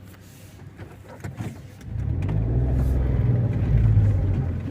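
A few light clicks and knocks, then about two seconds in the Mahindra KUV100's three-cylinder engine comes in loud and runs, growing louder as the car is driven off for a test after a steering rack replacement.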